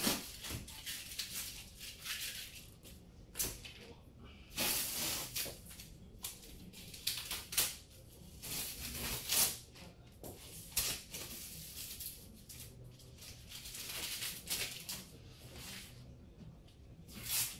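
Masking tape being peeled off a freshly painted wall in a series of pulls, each a short burst of tearing noise, with quieter handling between.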